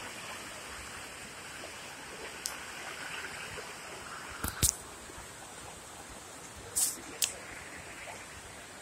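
Steady rush of Turner Falls' water, with a few short sharp clicks standing out about two and a half, four and a half and seven seconds in.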